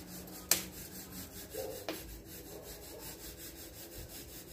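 Braai fire burning in a brick hearth, with a steady crackling hiss and one sharp loud click about half a second in, then a smaller one near two seconds.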